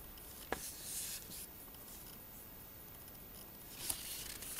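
Paper instruction booklet handled and a page turned, rustling near the end, with a sharp tap about half a second in.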